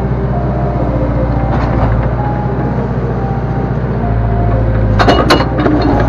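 Backhoe loader's diesel engine running steadily, getting a little louder about four seconds in as the hydraulics are worked. Near the end come a few sharp metallic knocks.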